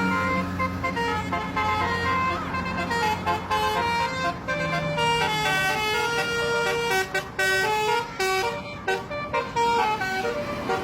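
Bus telolet horn, a multi-trumpet air horn, playing a fast tune of short stepped notes, over a low steady drone in the first few seconds.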